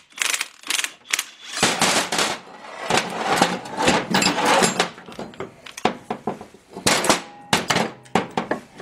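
Cordless impact wrench hammering in rattling bursts on the screw of a factory bearing puller, drawing a bearing off an SM465 transmission shaft, followed by sharp metal clicks and clanks as the puller is handled.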